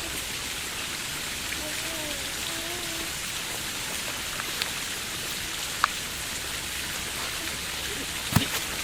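Steady hiss of splashing water, with a few sharp clicks, the loudest near the end.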